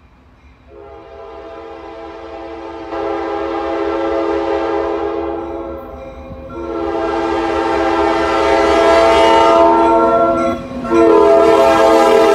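Locomotive K5LA five-chime air horn sounding as the train approaches and passes: a long blast starting about a second in, a second long blast after a short break, and a third beginning near the end, growing louder as the locomotive comes close. Under the horn is the low rumble of the train rolling by.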